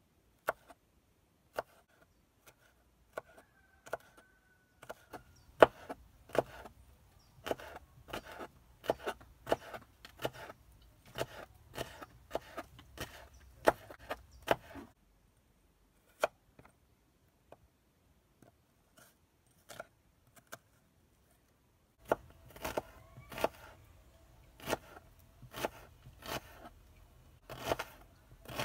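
Kitchen knife chopping green bell pepper and then onion on a wooden cutting board: sharp, irregular knocks of the blade striking the board, about two a second, thinning to a few scattered knocks in the middle before picking up again.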